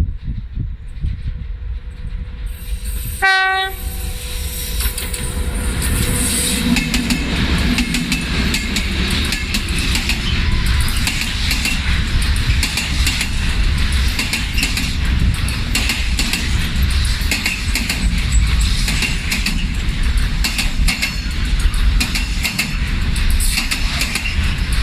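A train sounds one short horn blast about three seconds in, then runs past close by: a loud, steady rush of the rolling train with rapid clicking of wheels over the rail joints.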